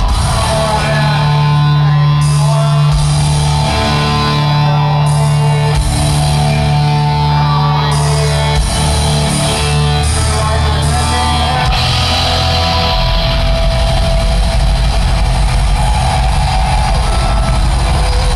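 Loud live heavy rock from a full band, with distorted guitar, bass and drums, filling a large arena hall.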